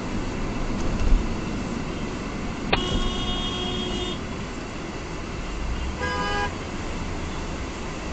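Steady road rumble inside a moving car, with a low thump about a second in. Two car horn honks: a longer one starting about three seconds in that lasts about a second and a half, and a shorter one at a different pitch about six seconds in.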